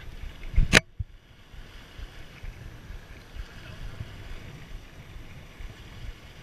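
Wind noise gusting on the microphone aboard an Enterprise sailing dinghy under sail, with one sharp knock a little under a second in.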